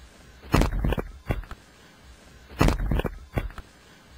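A quick cluster of sharp knocks or thumps, repeated three times about two seconds apart and much the same each time.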